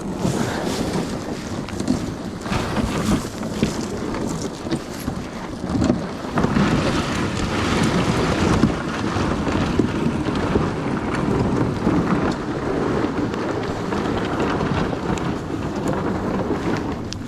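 Wind buffeting the microphone over the rush and splash of water along a moving kayak, uneven and gusting.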